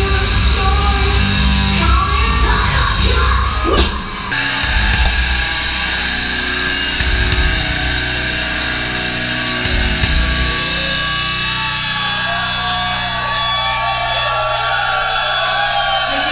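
Heavy metal music with distorted guitars and drums, pounding for the first few seconds. About four seconds in it changes to sustained chords over a steady high ticking beat. The ticking stops about ten seconds in and the chords ring on over a low drone.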